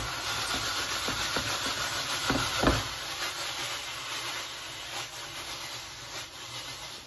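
Food sizzling in a hot frying pan as the pan is handled and lifted, with a couple of knocks of the pan about two and a half seconds in; the sizzle slowly dies down.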